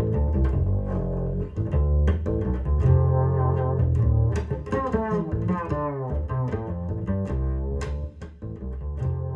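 Bass-led jazz music: a plucked double bass holding deep low notes, with sharp percussive attacks throughout, played back over a hi-fi loudspeaker system and recorded in a listening room.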